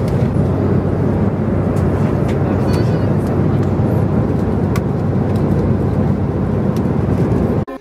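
Steady airliner cabin noise in flight: a dense low rumble of engines and rushing air with a constant hum, and a few light clicks. It cuts off abruptly near the end.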